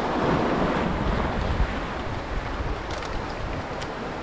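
Small waves washing over a rocky shoreline, with wind buffeting the microphone. A few faint clicks near the end.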